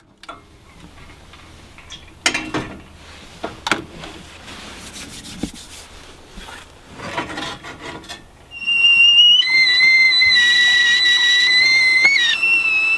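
Stainless steel whistling kettle on a gas hob coming to the boil about two-thirds of the way in: a shrill, steady whistle that splits into a two-note tone for a few seconds and then drops back to a single note. Before that, a few scattered clicks and clatters.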